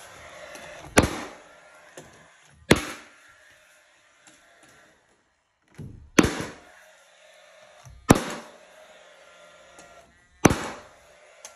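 Paslode cordless finish nailer firing five times, sharp single cracks a second or two apart, as it drives finish nails into the door casing.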